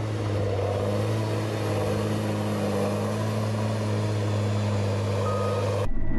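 Diesel engine of a Tigercat 635D skidder running steadily with a deep, even hum. The sound changes abruptly shortly before the end.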